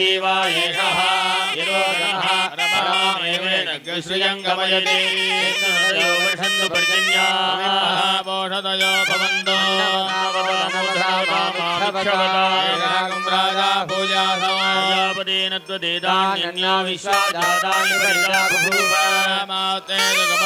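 Nadaswaram, the South Indian double-reed pipe, playing a wavering, gliding melody over a steady drone.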